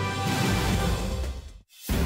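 News-bulletin theme music playing under a title graphic, cutting out for a moment near the end and then starting again.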